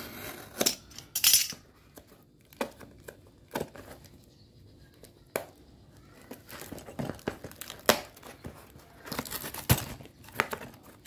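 A taped cardboard parcel being cut with a box cutter and torn open by hand: irregular ripping of cardboard and packing tape, with sharp crackles and rustling.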